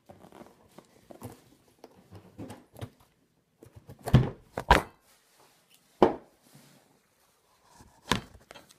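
Scissors cutting and scraping through packing tape and the cardboard of a mailing box, with light crackling, broken by four loud thumps as the box is handled, two close together about four seconds in, another about six seconds in and one near the end.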